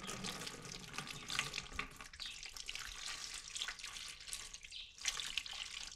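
Water poured from a jug and splashing steadily as hands are washed, with a short break about five seconds in.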